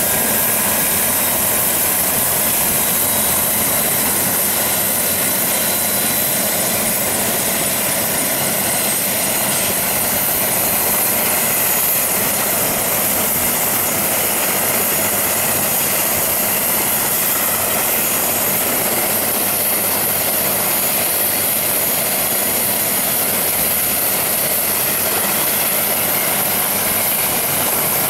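Light turbine helicopter idling on the ground with its main rotor turning: a steady high turbine whine over the rush of the rotor.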